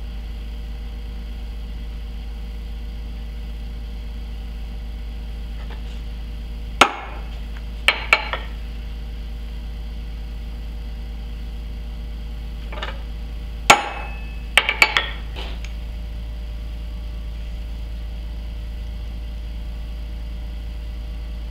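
Hammer striking a center punch on a steel plate, marking hole locations for drilling. Two sets of sharp metallic taps, each a hard blow followed by two or three lighter ones, the second set about seven seconds after the first.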